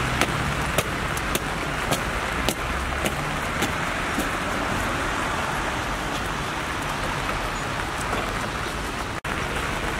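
Steady hiss of rain and traffic on wet pavement, with sharp ticks about every half second through the first four seconds or so: the measured marching steps of police honour guards carrying a wreath. The sound drops out for an instant near the end.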